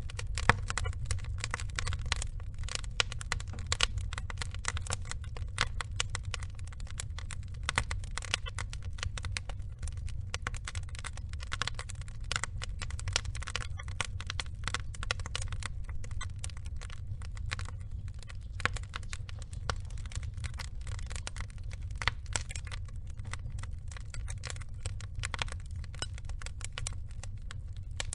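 Wood fire burning, with dense, irregular crackling and popping over a low rumble of the flames.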